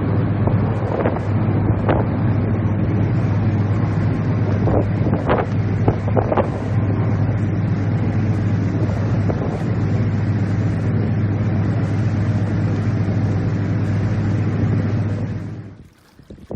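A ferry's engine drones steadily at a constant low pitch, with wind buffeting the microphone and a few scattered knocks. The sound cuts off suddenly just before the end.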